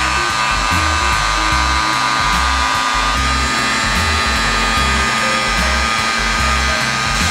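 Electric heat gun running steadily, blowing hot air onto fabric swatches: an even rushing hiss with a high whine. Background music with a repeating bass beat plays underneath.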